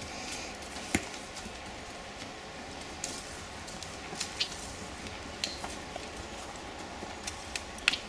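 A horse walking on a dirt track: irregular, scattered hoof steps and clicks of its tack over a steady background hiss, the sharpest click about a second in.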